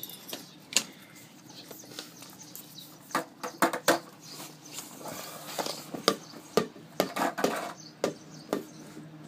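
Handling noise close to the microphone: irregular sharp knocks and taps with rustling, as a person reaches in beside it and then sits down.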